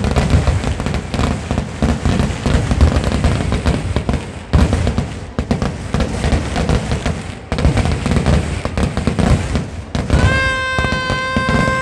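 Kerala temple-festival fireworks (vedikettu) going off in a dense, continuous barrage of rapid cracks and deep booms, loud throughout. About ten seconds in, a steady high pitched tone sounds over the blasts.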